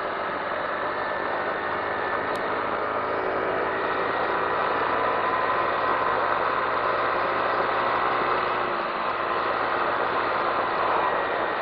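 Honda Navi110's small single-cylinder engine running steadily while riding at road speed, with wind and road noise.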